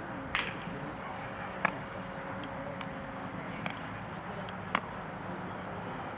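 Steady outdoor background noise at a ballfield with four sharp knocks spread through it, the loudest a little under two seconds in. A faint steady hum stops about three seconds in.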